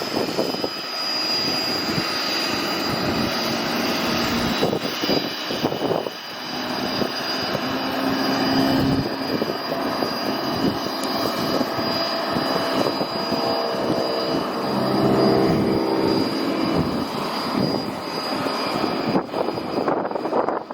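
Cessna 207 single-engine propeller plane taking off, its six-cylinder piston engine and propeller running steadily at takeoff power.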